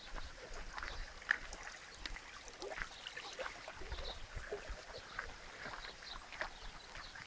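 Water trickling and gurgling in a small irrigation channel: a faint, irregular patter of short splashy blips.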